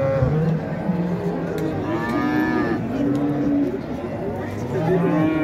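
Cattle mooing, several animals calling over one another, with one louder drawn-out moo that rises and falls about two seconds in.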